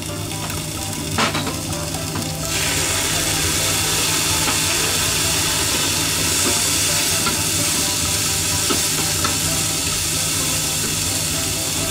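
Mizuna and jako stir-frying in a hot pan. There is a knock about a second in, then a loud, steady sizzle starts suddenly about two and a half seconds in.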